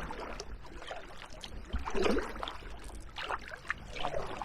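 Kayak paddle working in very shallow water: irregular splashes and drips from the blades, a few separate strokes, as the kayak is backed out.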